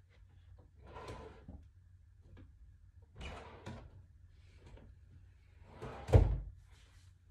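Clothes rustling and a wooden dresser drawer being worked, then a loud thump about six seconds in as a drawer is pushed shut.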